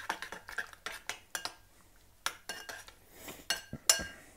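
A utensil stirring an oil and soy-sauce marinade in a bowl, clinking and scraping against the bowl in irregular strokes about twice a second, some leaving a brief ring; the loudest clink comes near the end.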